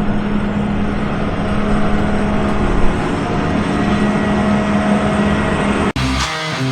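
A large engine running steadily with a constant hum. It is cut off abruptly near the end, where rock music with electric guitar and drums begins.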